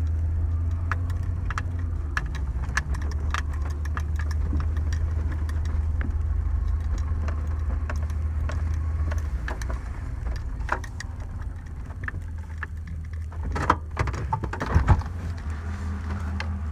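Vehicle engine running steadily, heard from inside as it is driven slowly, a low hum with scattered small clicks and ticks; a few louder knocks and rattles come about three quarters of the way through.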